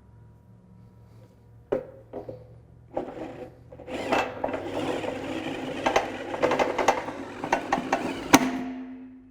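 Bluedog BWS-38 wire stripping machine slitting the insulation of a thick 500 MCM cable as it is fed through: a couple of knocks, then a rattling, scraping run with many sharp clicks that stops near the end.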